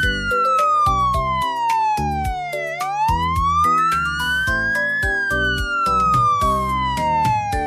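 Emergency-vehicle siren wailing slowly, its pitch falling, rising to a peak about five seconds in, then falling again, over children's background music with a steady beat.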